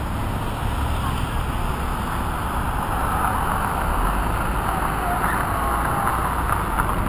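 A minivan driving past along the street, a steady rumble of engine and tyres, with the faint voices of a crowd behind it.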